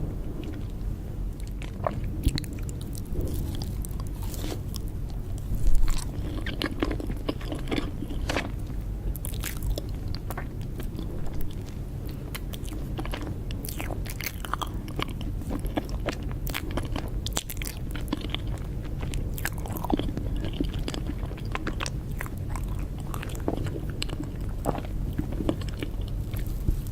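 A person biting and chewing cake, with many short clicks and smacks of the mouth.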